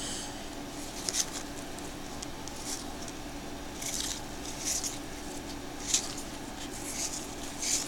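A stack of cardboard trading cards being thumbed through in hand, each card sliding off the next with a short swish, about seven in all, over a steady low hum.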